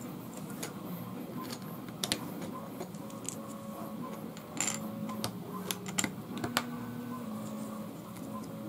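Scattered light clicks and taps of small plastic dungeon floor tiles being handled and set into a modular tabletop dungeon room.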